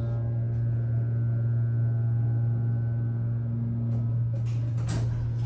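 Hydraulic elevator pump motor running with a steady low hum and a set of higher whining tones that fade away over the first few seconds as the car settles at the floor. A few sharp clicks come near the end.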